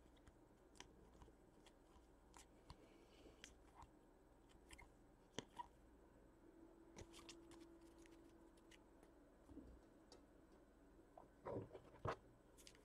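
Near silence with faint, scattered small clicks and taps of trading cards and packs being handled. A few louder clicks come close together near the end.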